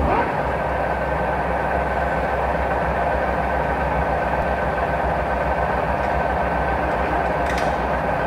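TOS SUS 63 engine lathe running with its large four-jaw chuck spinning. It rises in pitch and loudness right at the start as it comes up to speed, then runs steadily with a low hum and a high gear whine.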